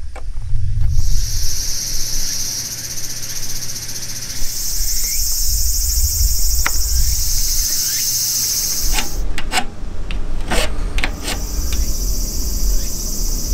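Insects buzzing steadily at a high pitch, dropping out for a few seconds past the middle. In that gap come several light metal clinks from small steel angle-iron pieces being handled.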